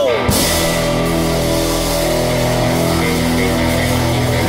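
Rock and roll band playing an instrumental stretch: electric guitar, bass and drums, with notes held steady over cymbal wash after a last sung note slides down at the very start.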